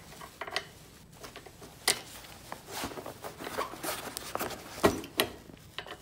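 Handling sounds of a bolt and washer being worked through woven seat-belt webbing into the tricycle's metal seat frame: light rustling with a few sharp clicks, the loudest about 2 s and 5 s in.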